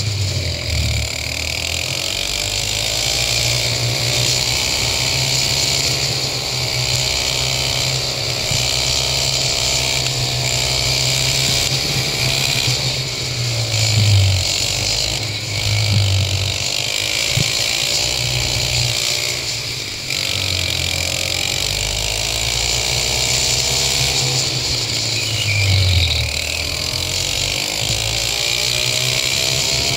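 Go-kart engine running hard on track, its pitch falling and climbing again several times as it slows for corners and accelerates out, over a steady rushing hiss.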